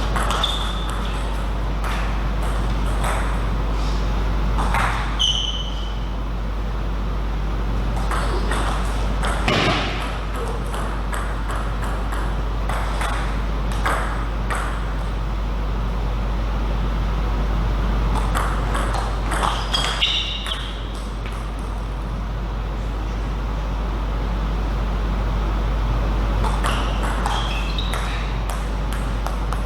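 Table tennis rallies: the ball clicking back and forth off the paddles and table in about six short bursts, with pauses between points. A few short high squeaks come in among the rallies, over a steady low hum.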